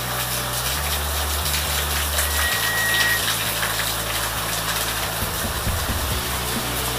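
Heavy rain pouring steadily in a downpour, an even rushing hiss of rain on foliage, lawn and pavement. A thin high tone sounds briefly about halfway through.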